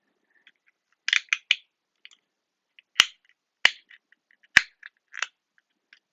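Sharp clicks and clacks of small fidget toys being handled and put into a box: a cluster of light clacks about a second in, then three sharp, loud knocks between about three and four and a half seconds in, with lighter clicks around them.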